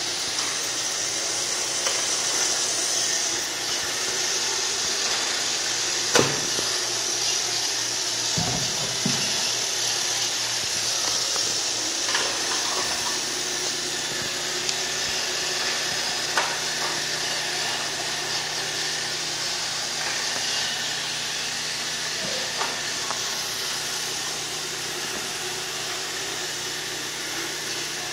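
Roomba robot vacuum running, a steady high whirring hiss of its motor and brushes, with a few short knocks, the loudest about six seconds in.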